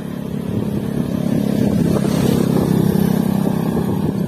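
A motorbike overtaking at close range, its engine drone swelling to a peak about two to three seconds in and easing slightly as it pulls ahead.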